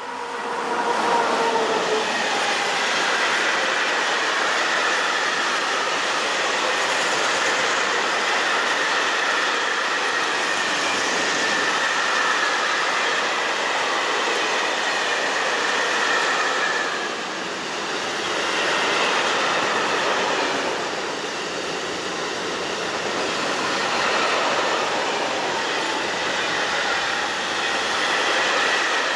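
Electric-hauled freight train passing close by. The locomotive's whine drops in pitch as it goes by in the first two seconds, then a long string of flat wagons and tank wagons rolls past with a steady high ringing from the wheels on the rails.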